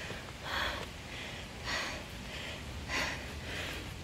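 A woman breathing hard and fast through the mouth, winded from climbing a steep slope: quick, even breaths in and out, about three every two seconds.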